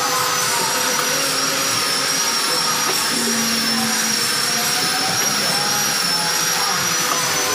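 Automatic pillow-pack sachet packing machine for cooking oil running: a steady, loud mechanical hiss and hum with a thin high whine.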